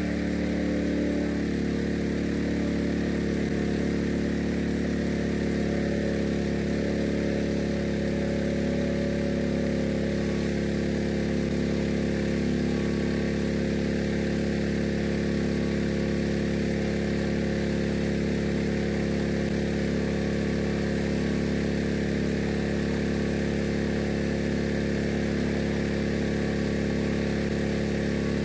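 Small gasoline engine of a mud pump running steadily, driving water down the pipe to jet the well borehole deeper.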